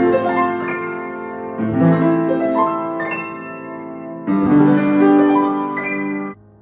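Upright piano played with both hands: sustained chords, with new chords struck firmly about every two and a half seconds. The sound cuts off abruptly near the end.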